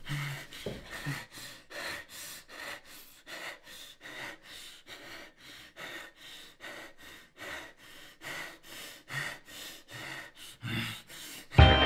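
Rapid, heavy breathing, about three breaths a second, with short voiced grunts near the start and near the end. Music starts suddenly just before the end.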